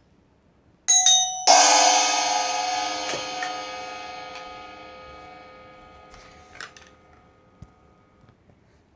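A cymbal struck twice: first a short ringing tap, then a loud crash that rings with many overtones and fades away over about five seconds.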